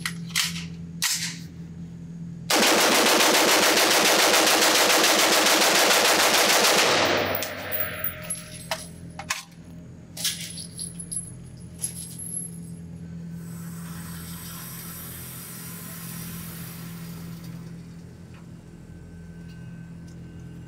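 Sig Sauer MCX Spear LT 5.56 pistol fired semi-automatically as fast as the trigger can be pulled in a magazine dump: one rapid, unbroken string of shots lasting about five seconds, starting a couple of seconds in. It rings off the concrete walls of an indoor range. A few sharp clicks of handling come before the string and scattered knocks after it, over a steady hum.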